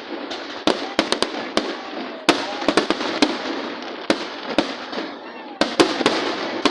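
Fireworks display: a rapid, irregular series of sharp bangs, sometimes several in quick succession, over a steady background of crowd noise.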